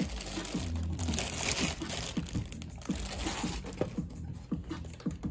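Packaging crinkling and rustling in irregular crackles, with small clicks, as a compact car amplifier is taken out of its wrapping and handled.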